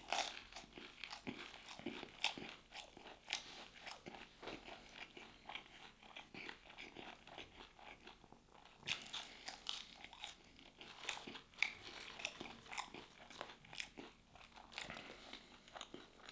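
A person chewing crunchy food close to the microphone, with a dense, irregular run of small crisp crunches and bites.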